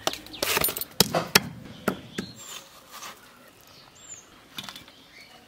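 A hand knocking and slapping on a whole watermelon: a quick run of sharp knocks in the first two seconds or so, then quieter.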